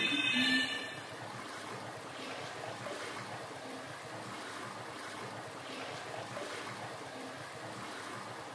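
Faint, steady rushing of water. Background music fades out about a second in.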